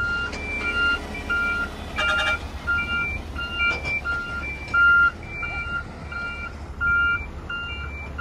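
A dump truck's reversing alarm beeping about twice a second, alternating a lower and a higher tone, as the truck backs up to be loaded, over the steady low rumble of diesel engines. A brief clatter comes about two seconds in.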